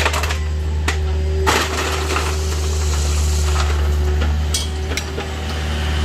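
Scattered sharp knocks and clinks, like hard objects striking, over a steady low drone.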